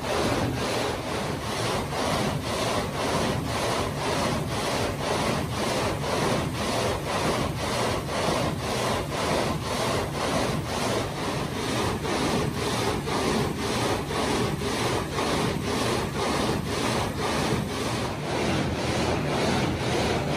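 Multi-blade marble gang saw cutting a stone block under cooling water. The blade frame grinds back and forth in a steady rhythm of about two strokes a second, over the rush of the water spray.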